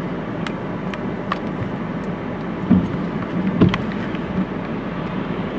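A car running steadily, a low hum under an even rushing noise, with two dull thumps near the middle.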